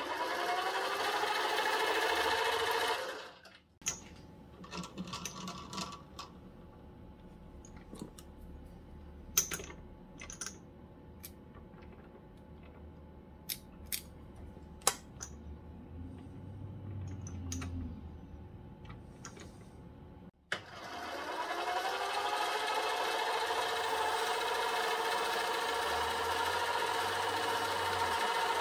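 Small benchtop lathe's spindle motor spinning up with a rising whine and running steadily for about three seconds, then stopping. A quieter stretch of scattered clicks and handling follows, then about twenty seconds in the motor spins up again and runs steadily on.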